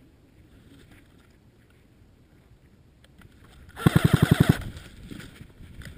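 Electric airsoft AK-style rifle (AKS-74U 'Krinkov' replica) firing a short full-auto burst of about ten rapid shots, about four seconds in.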